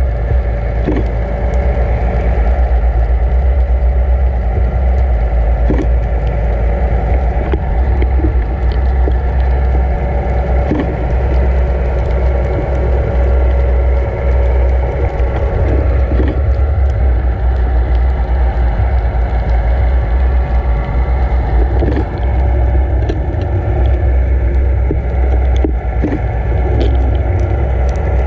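Underwater noise around a camera being towed behind a boat: a steady low rumble of water rushing past the housing, over the steady hum of the towing boat's engine and propeller, with scattered faint clicks.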